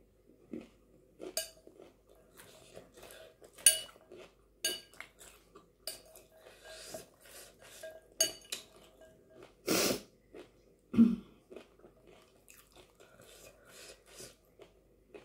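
A metal spoon clinking and scraping against a glass bowl as chana chatpate is scooped up, several sharp ringing clinks, between stretches of chewing and breathing. A louder breathy burst comes just under ten seconds in.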